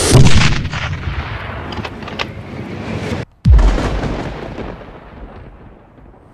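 Two explosion sound effects for a bazooka shot: a loud boom at the start that decays into rumble, then after a moment of silence a second, deeper blast that fades slowly away.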